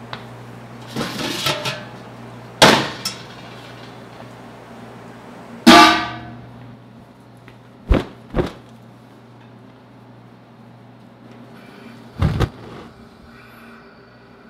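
Stainless-steel cookware being handled in a commercial kitchen: several sharp metal clanks and knocks over a steady low hum. The loudest is a ringing clang about six seconds in, and two quick knocks follow a couple of seconds later.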